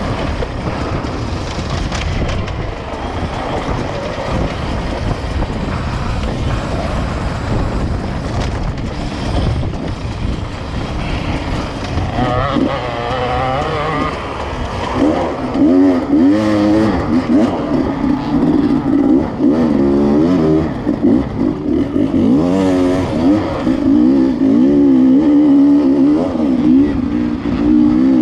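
Dirt bike engine heard on board, close to the rider. For the first twelve seconds or so it is a rough, rattly jumble as the bike comes down a rocky slope. After that the engine is louder and revs up and down again and again under the throttle.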